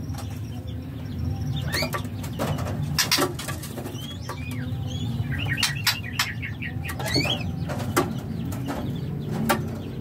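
White-rumped shama in a breeding aviary: wing flutters and many sharp clicks as it moves about the perches, with short chirps and quick call notes, most of them in the middle of the stretch, over a steady low hum.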